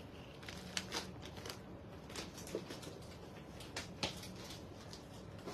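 A few light, irregular clicks and taps of handling, over a faint steady room tone.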